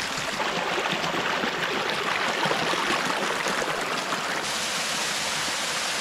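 Shallow rocky creek babbling and gurgling over stones. About four seconds in it switches suddenly to the steadier, even rush of a small waterfall spilling into a pool.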